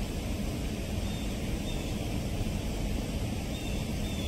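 Steady low rumbling background noise outdoors, with a few faint, short high chirps.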